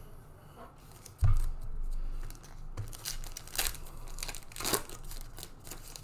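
A foil Panini Mosaic trading-card pack being torn open by hand, the wrapper crinkling in a run of sharp rips. There is a dull thump about a second in, before the tearing.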